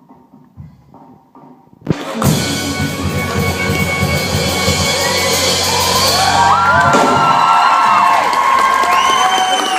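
A concert audience suddenly bursts into loud cheering and screaming about two seconds in, over drumming and music. High shrieks and shouts rise above the crowd in the second half.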